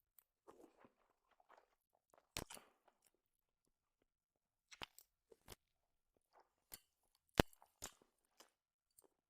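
Close-miked eating: a person crunching and chewing food in short, scattered bursts, with a few sharp clicks. The loudest come about two and a half seconds in and again about seven and a half seconds in.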